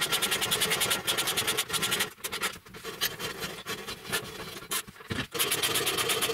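Hand-cranked roller pipe bender rolling a steel tube: a rapid, even clicking rasp of about ten clicks a second. About two seconds in it breaks into irregular scrapes and knocks, and it turns steady again a little after five seconds.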